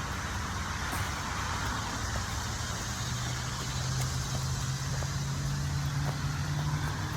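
A motor vehicle running, its low engine hum slowly rising in pitch as it gathers speed, over a steady rush of road noise.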